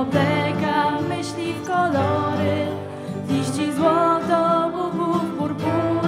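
Female voices singing a Polish scouting song live to ukulele accompaniment.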